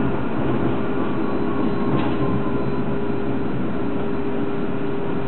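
A tram running, heard from inside the passenger car: a steady rumble of wheels and motor with a constant low tone, and one brief click about two seconds in.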